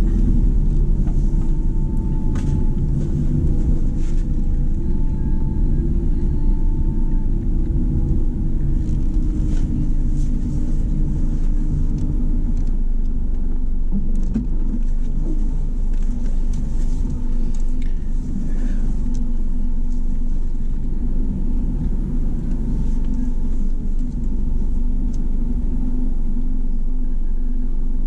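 Car engine and road noise: a steady low rumble with engine tones that shift in pitch about midway.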